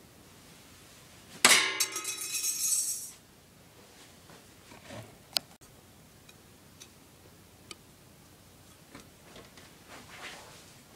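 A homemade ninja star strikes with a sharp impact about a second and a half in, then rings and clatters for about a second and a half. A few faint clicks follow.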